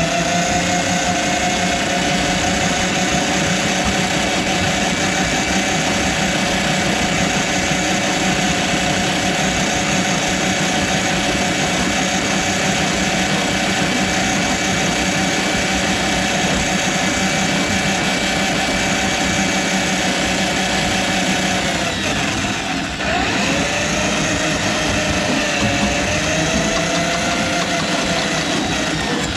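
Hand-held electric drum drain auger running, its motor whining steadily as the spinning cable works through a kitchen sink drain line clogged with grease. About three quarters of the way through the pitch dips and wavers as the motor slows, then comes back up.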